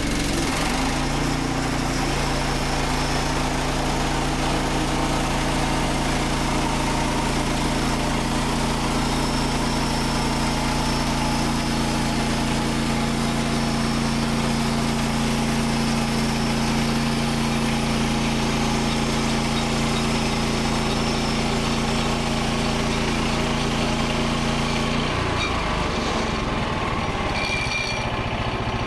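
Frontier OS27 portable bandsaw sawmill's engine running at a steady, constant speed, then its note changing abruptly about 25 seconds in.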